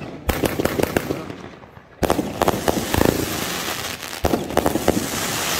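Firecrackers going off in a rapid string of sharp bangs and crackling, growing suddenly denser and louder about two seconds in.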